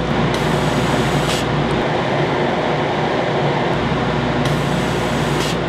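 Laser cutter running as it works on a cardboard tube: a loud, steady machine hum of its fans and air pump, with a brighter hiss that swells twice.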